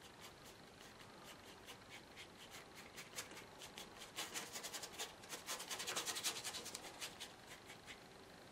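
Flat brush scrubbing acrylic paint onto paper in quick, repeated back-and-forth strokes: a dry, scratchy rubbing that gets louder and faster in the middle and eases off near the end.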